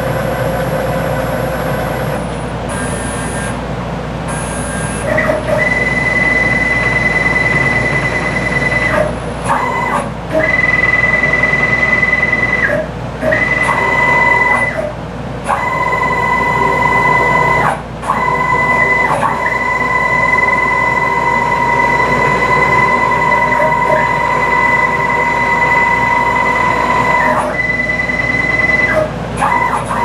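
Stepper motors on a DIY CNC router driving the gantry through a run of moves: a steady high whine over a rumble. The whine stops briefly every few seconds, between moves, and starts again.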